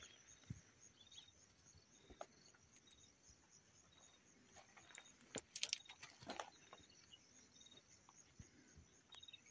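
Near silence: faint outdoor ambience of short high chirps repeating about once a second over a steady high hiss, with a few light clicks and crackles about halfway through.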